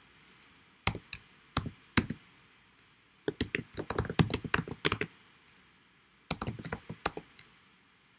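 Typing on a computer keyboard: a few separate keystrokes, then a quick flurry of keys from about three to five seconds in, and another short burst a little later.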